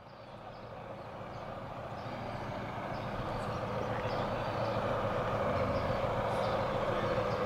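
Street traffic noise with a vehicle engine running, a steady rumble that grows gradually louder.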